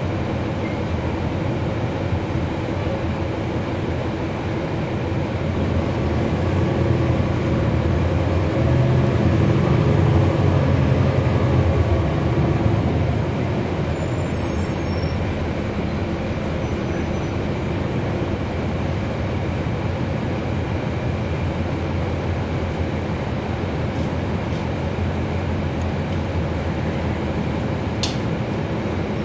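Cummins ISL9 diesel engine of a NABI 40-SFW transit bus running, heard from inside the bus. Its drone swells from about six seconds in as the bus pulls away, holds loudest for several seconds, then eases back to a steady cruise. A sharp click comes near the end.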